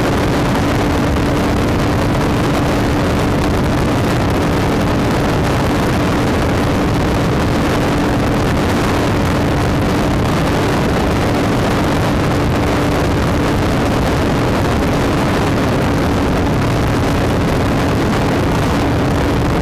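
Motorcycle cruising at a steady speed: an unchanging engine note under a constant rush of wind and road noise on the handlebar-mounted microphone.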